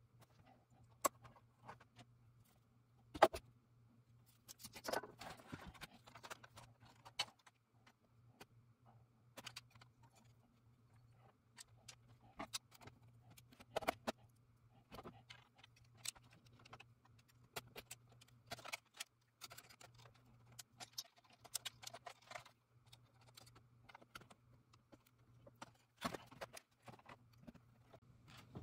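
Scattered clicks, taps and light clinks of small metal parts and a screwdriver being handled while taking apart a cassette deck, with a sharper knock about three seconds in. A faint steady low hum runs underneath.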